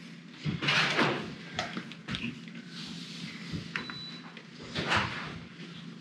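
Kitchen handling knocks: a plastic milk jug set down on a wooden counter and the lid fitted onto a milk frother, a few separate clunks and clicks, the loudest near the start and about five seconds in.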